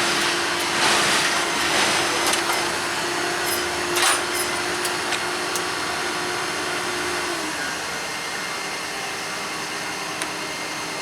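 Railway track maintenance machinery running steadily: a constant rushing machine noise with a steady whine that drops slightly in pitch and fades about seven seconds in, and a few short knocks, the loudest about four seconds in.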